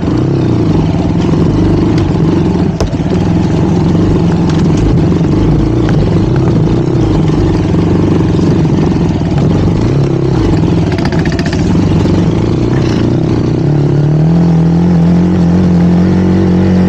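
Honda CRF150L single-cylinder four-stroke engine pulling under load on a dirt-trail climb, revs rising and falling. About fourteen seconds in, the engine settles into a steadier, higher pitch.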